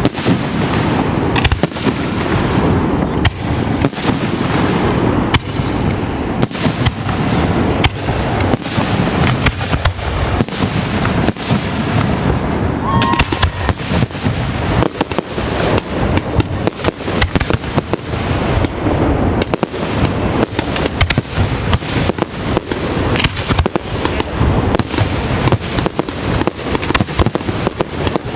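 Fireworks display going off in a dense, continuous barrage of bangs, several a second, with no break.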